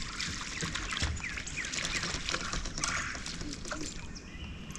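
Wild birds chirping and calling, many short calls overlapping in a busy chorus.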